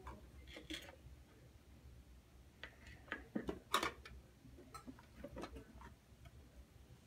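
Toy dishes and pots, small plastic and metal pieces, clicking and clattering faintly as they are handled, a few scattered knocks with the loudest nearly four seconds in.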